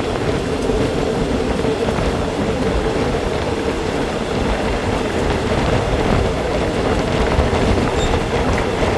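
Express passenger train running at speed, heard from aboard a coach through an open window: a steady rumble of wheels on rails with rushing air.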